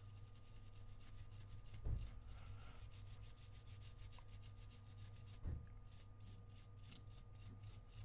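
Faint, rapid scraping and rubbing strokes of a tool worked over the NAND pads of an iPhone 6S logic board, clearing glue residue, with two soft thumps about two and five and a half seconds in. A steady low electrical hum runs underneath.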